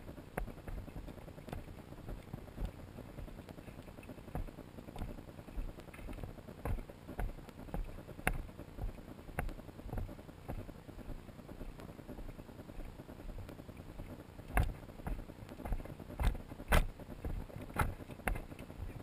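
Footsteps of a hiker walking on a dry dirt and gravel trail, about two steps a second, with a few sharper crunches and clicks near the end.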